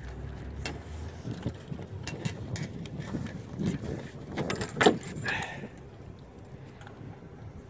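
Sailboat rigging being handled as the adjustable backstay is freed from the lowered mast: an uneven run of small clicks and taps from the wire, lines and metal fittings, with a louder clatter about five seconds in.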